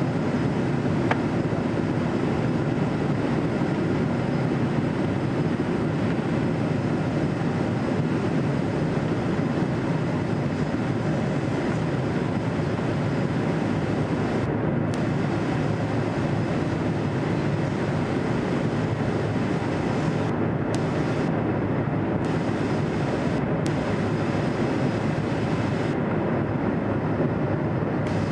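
Steady engine and airflow noise inside an aircraft cabin in flight, an even low drone with no change in level.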